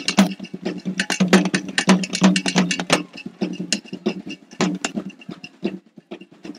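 Drum music: rapid, irregular drum strokes, several a second, over a steady low hum that drops out for a moment near the middle and again near the end.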